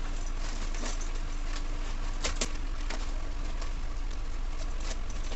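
Newspaper wrapping and packing tape being torn and crumpled by hand, in scattered short crackling rips over a steady background hum.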